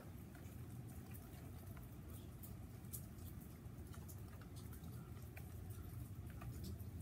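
Muffled handling noise from a camera with its lens covered: a steady low rumble with scattered faint ticks.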